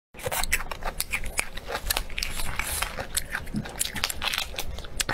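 Shell of a cooked giant prawn being cracked and peeled apart by hand: a dense, irregular run of sharp crackles and snaps.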